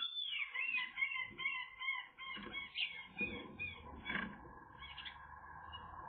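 Eurasian magpie in its twig nest giving a run of soft, wavy chattering calls over the first few seconds, followed by scratchy rustles of twigs and lining as it shapes the nest cup.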